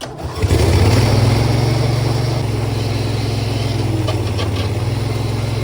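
Bobcat 7753 skid steer's diesel engine running steadily and loud while the boom lift is worked, the pitch dipping slightly about two and a half seconds in. The lift cylinder has no hydraulic fluid or hoses, and the boom does not rise.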